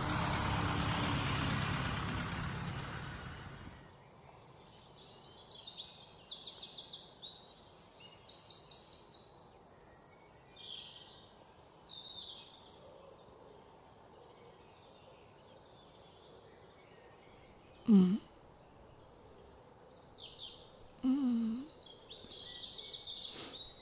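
A broad rushing noise fades away over the first four seconds. Then comes an outdoor ambience of high, rapidly pulsed chirping calls repeating on and off, with a couple of short, low sliding sounds later on.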